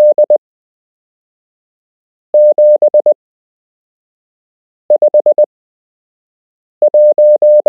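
Morse code numerals sent as a keyed single-pitch beep tone, each character five dots and dashes, one character about every two seconds with silence in between. These are practice code groups of numbers for copying by ear.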